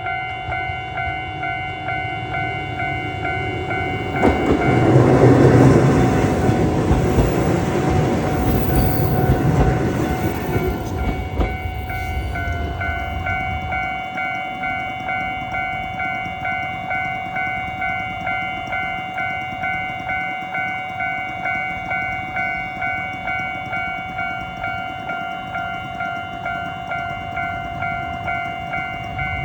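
Japanese level-crossing warning bell ringing with a steady, even beat, about one and a half strokes a second. An electric commuter train passes over the crossing from about four seconds in until about eleven seconds in, loudest just after it arrives, while the bell keeps ringing.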